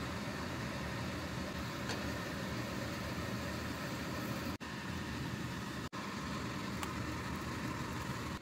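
Steady cooking noise of a quesadilla frying in a cast iron skillet: an even sizzling hiss over a low hum, broken off for an instant twice.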